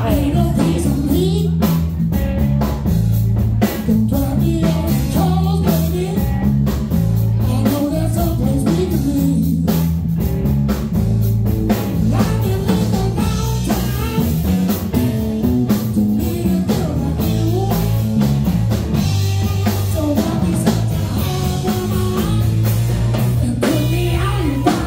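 Live blues-rock band playing: electric guitars and a drum kit keeping a steady beat over a continuous bass line, with a male lead singer's vocals.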